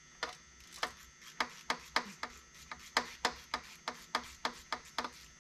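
Hand ratchet clicking steadily, about three sharp metallic clicks a second, as a bolt in the rocker gear on the cylinder head of a Cummins ISL9 diesel is worked.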